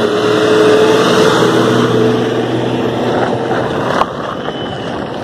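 Road noise while riding: a steady vehicle engine hum as a bus passes close, fading out about three seconds in, with wind rushing over the microphone throughout. There is a single sharp knock about four seconds in.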